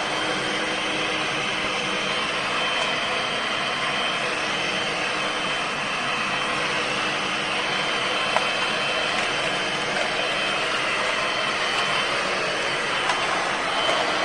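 Vacuum cleaner motor running steadily with an even whooshing hum, switched on just before.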